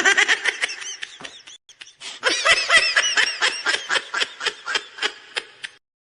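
High-pitched giggling laughter used as a meme sound effect. It comes in two bouts of quick, rapid-fire 'hee-hee' pulses with a short break between them, and stops just before the end.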